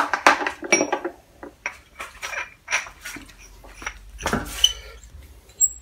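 A run of sharp clicks, clacks and short metallic clinks as pool-ball knobs and metal lever handles are handled. Some of the clinks ring briefly.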